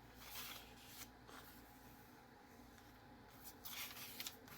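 Faint rustling of paper as the pages and inserts of a handmade journal are handled and turned, with a little more rustle near the end.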